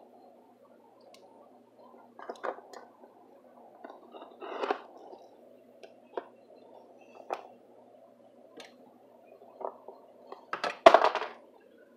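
A taped cardboard shipping box being handled and cut open with a folding utility knife: scattered knocks and rustles, then a louder cluster of knocks and scraping near the end.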